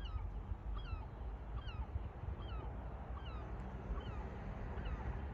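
A seagull calling over and over, short hooked cries about two a second, over a steady low rumble of wind or distant engines.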